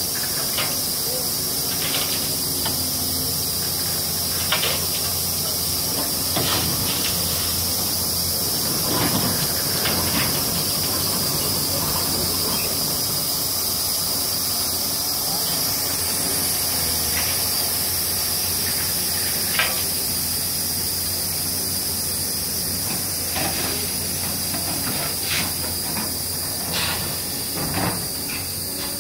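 Side-tipping ballast wagon standing tipped after dumping old ballast: a steady high hiss over a low hum, with scattered clicks and knocks of stones.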